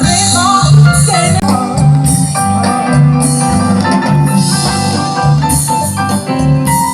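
Live band music played loudly, with a singer's voice over the instruments in the first second, then mostly instrumental.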